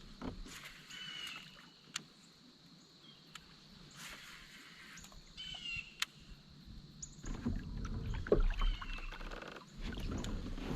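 Quiet sounds from a fishing kayak on the water: a couple of sharp clicks or knocks from gear and hull, low water and hull noise in the second half, and birds chirping now and then.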